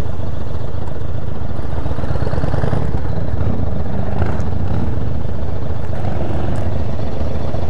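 Cruiser motorcycle engine running at low revs as the bike rolls slowly: a steady, low, rough rumble.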